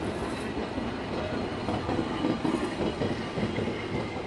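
Illuminated Blackpool tram rolling past close by, its wheels running on the rails, loudest about halfway through.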